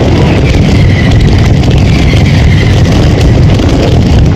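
Night mascletà firework barrage: firecrackers going off so fast that they blur into one unbroken, very loud rumbling rattle, heavy in the low end, as heard through a phone's microphone close to the firing line.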